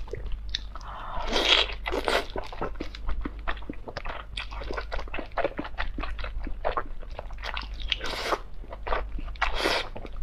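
Close-miked wet mouth sounds of biting and chewing oily braised lamb intestines: a dense run of small smacking clicks, with louder sucking or slurping surges about a second and a half in and twice near the end.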